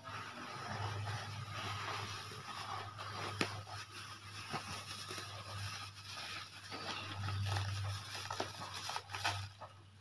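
Granular fertilizer pouring and sliding out of a plastic bag onto a heap on a tarp, with the plastic bag rustling and crinkling as it is shaken and handled.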